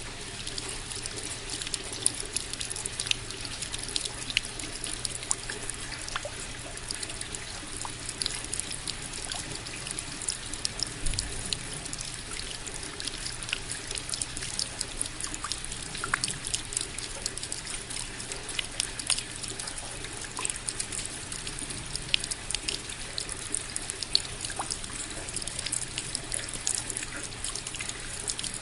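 Steady rain falling: an even hiss dotted with many sharp, close drips.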